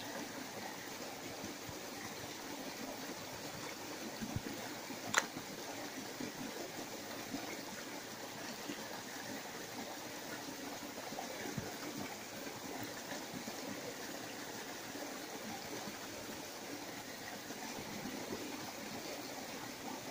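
Bare feet squelching in soft, wet mud, a continuous wet squishing and sucking. A single sharp click comes about five seconds in.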